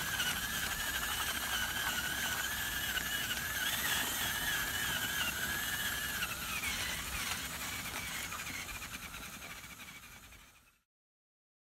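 Cordless drill spinning a homemade rubber-finger plucker against a chicken carcass: a wavering motor whine over the hiss and slapping of the rubber fingers stripping feathers. The whine dips in pitch about six and a half seconds in, then the sound fades and stops near the end.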